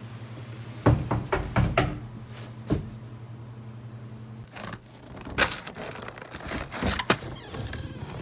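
A steady low hum, with a quick run of sharp knocks and thumps about a second in, one more shortly after, and a second, rougher cluster of knocks and scraping noise in the second half.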